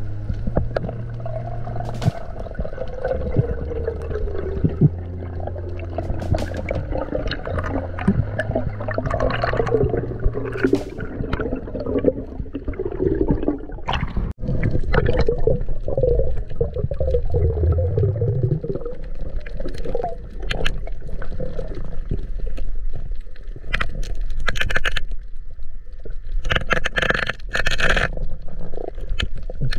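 Water gurgling and sloshing as heard through an action camera underwater, changing after a cut about halfway through to choppy surface water, with clusters of clicks and splashes near the end.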